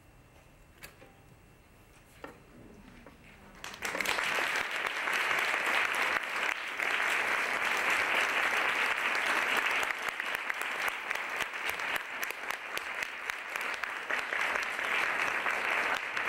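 A quiet pause with a few faint clicks, then audience applause breaks out suddenly about four seconds in and carries on as a steady clapping to the end.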